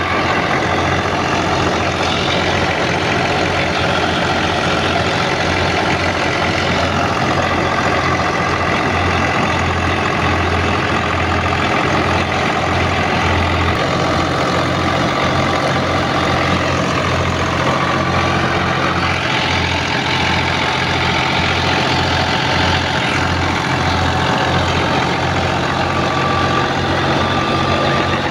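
Al-Ghazi tractor's diesel engine running steadily under load, driving a wheat thresher through its PTO, with the thresher running along with it. The engine note shifts slightly about halfway through.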